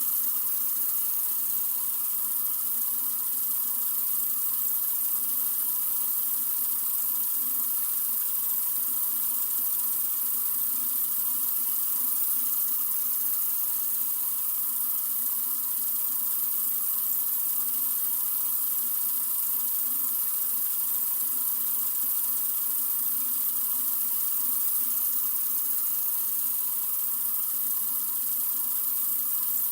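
Sink faucet running in a steady, unbroken stream: an even hiss, brightest in the treble.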